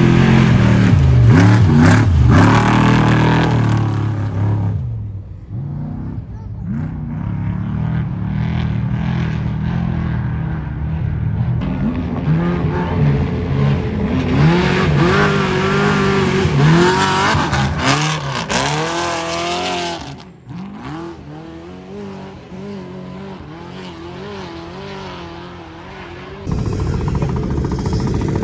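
Desert race trucks passing one after another, engines revving hard with the pitch rising and falling as they power through. The loudest pass is at the start, another builds up and fades in the middle, and the sound drops and jumps abruptly twice near the end.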